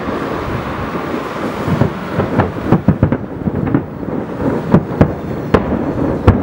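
Aerial firework shells bursting in a dense barrage: a continuous rumble of overlapping booms, with a run of sharper, louder bangs starting about two seconds in, the loudest near the end.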